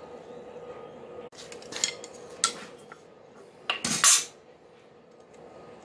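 Hard metal objects clinking and clattering: a few separate sharp knocks, then a louder, longer clatter about four seconds in, over a faint steady hum.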